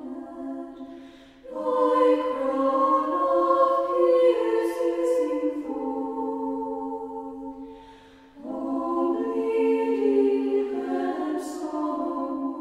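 A choir singing unaccompanied, in sustained, slow phrases. A short pause comes about a second and a half in, and another about eight seconds in, each followed by a new phrase.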